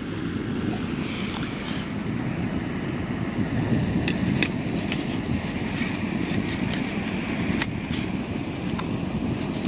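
Jetboil gas canister stove burner running with a steady low rushing noise under the pot of water it is heating. A few light clicks in the second half.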